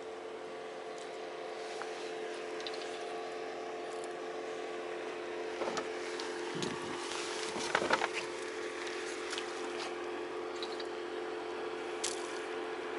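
Small fishing boat's engine idling with a steady hum, water lapping against the hull, and a few knocks and rustles of handling about six to eight seconds in.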